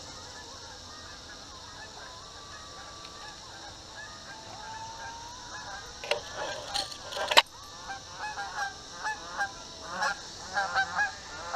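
Geese honking in a run of short calls, several a second, starting about eight seconds in. Just before that, a few sharp knocks, the loudest about seven seconds in.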